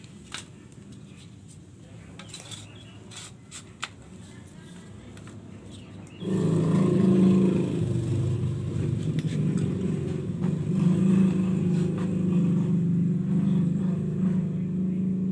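A few light clicks and taps, then about six seconds in an engine begins running, a steady low hum with a slightly wavering pitch that is much louder than what went before.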